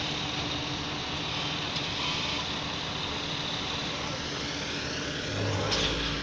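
Hook-lift skip truck's diesel engine running steadily, with a steady hum. The engine grows louder with a low rumble in the last second.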